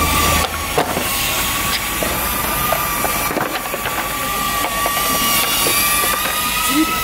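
FPV drone's motors whining at a steady high pitch, the tone wavering slightly, with scattered light clicks and knocks underneath.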